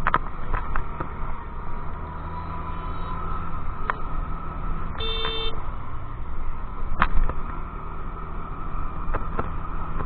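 Steady engine and road noise of a moving scooter, with a short vehicle horn toot about halfway through and a few sharp knocks.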